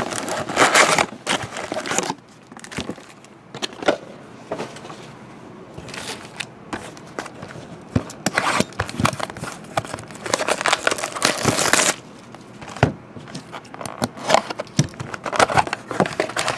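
Cardboard hobby box of Panini Contenders hockey cards being opened and its wrapped card packs pulled out and stacked, with irregular crinkling and rustling of the wrappers and cardboard and scattered light taps of packs set down on the table.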